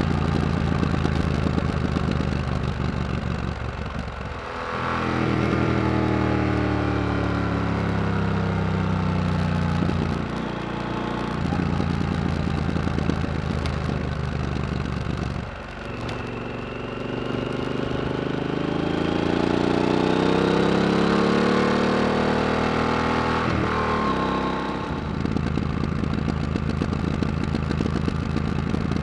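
Yamaha XT1200Z Super Tenere's parallel-twin engine through a loud, unbaffled Yoshimura RS-4 exhaust, ridden on the road. The engine note climbs as the bike accelerates, then dips briefly about four times as the throttle closes or a gear changes, and climbs again.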